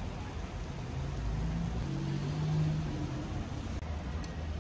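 Inner-city traffic: a passing vehicle's engine hums, swelling and fading between about one and three seconds in, over a steady wash of street noise.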